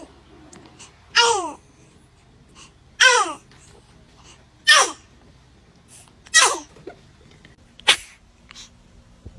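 A baby sneezing five times in a row, short high-pitched sneezes about a second and a half to two seconds apart, the first ones ending in a falling squeak.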